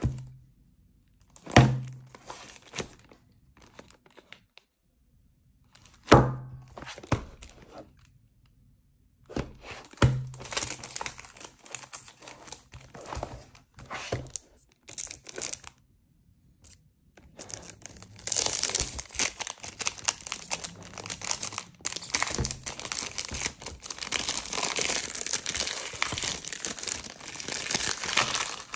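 Perfume box in its cellophane overwrap being turned over and knocked down on a table several times, with short crinkles of the plastic. From about two-thirds of the way in, the cellophane is torn open and peeled off, crinkling steadily.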